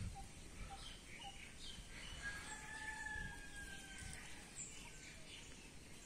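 Faint wild birds chirping in the background: short high chirps scattered throughout, with one long, slightly falling whistled note held for about two seconds near the middle.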